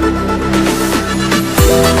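Electronic dance music with held synth tones and a steady beat; about one and a half seconds in, deep kick drums come in.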